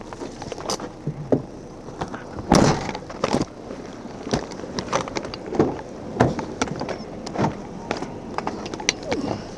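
Irregular knocks, clatters and rustles, the loudest a thump about two and a half seconds in.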